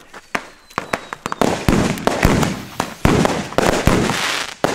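Thrown China Böller firecrackers going off in a rapid series of sharp bangs. From about a second and a half in they thicken into dense crackling, with several louder bangs standing out.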